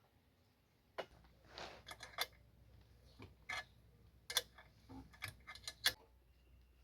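About a dozen irregular clicks and light knocks over some five seconds, with a faint low hum starting about a second in.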